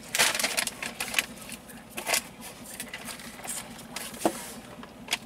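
Rustling and crinkling of food packaging being handled, loudest at the very start, with many scattered small clicks and crackles.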